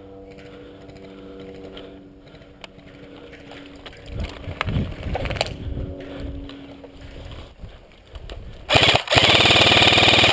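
Airsoft electric rifle firing one long full-auto burst near the end, a fast, even rattle of shots that is the loudest thing here. Before it come quieter shuffling and movement sounds.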